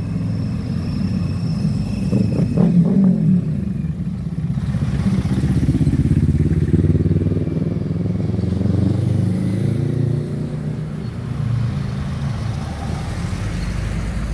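Engines of classic cars driving slowly past one after another in a parade, swelling as each one passes, with a motor scooter going by about halfway through.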